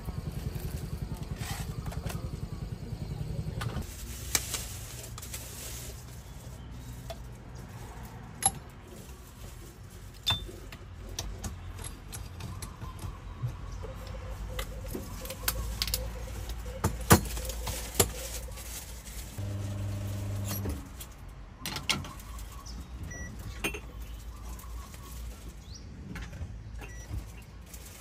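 Espresso being prepared by hand: sharp clinks and taps of metal tools, cups and portafilter against the counter and equipment, scattered through. A low rumble fills the first few seconds, and a machine hum sounds for about a second and a half a little past the middle.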